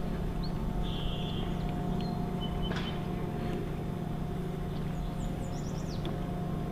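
Steady low outdoor rumble, like distant traffic, with small birds chirping now and then over it, a brief buzzy call about a second in and a quick run of falling chirps near the end.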